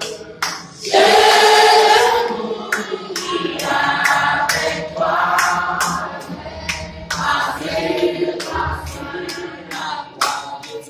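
A small group of women and men singing a hymn together, choir-style.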